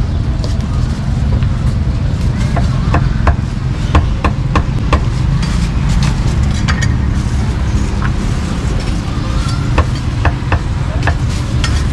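A cleaver chopping meat on a thick round wooden chopping block. A quick run of sharp knocks comes about two to five seconds in, then scattered single chops. Under it runs a steady low rumble.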